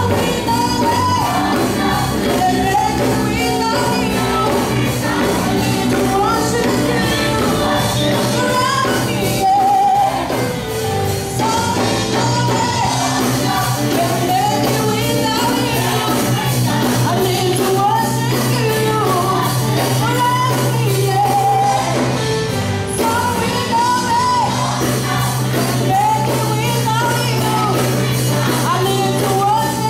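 Live gospel worship music: a woman leads the song on a microphone while a choir sings with her and a band plays, the music running without a break.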